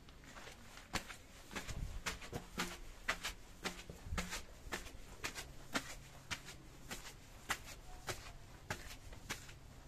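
Footsteps of someone climbing stone steps: a steady run of sharp steps on the stone.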